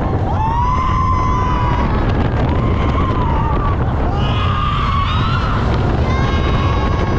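Roller coaster riders giving about four long screams over the steady rush of wind and the rumble of the coaster train, with wind buffeting the microphone.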